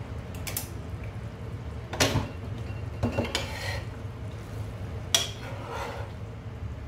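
Metal spoon scooping chicken korma out of a coated cooking pot, scraping and clinking against the pot several times, the sharpest clinks about two and five seconds in. A steady low hum runs underneath.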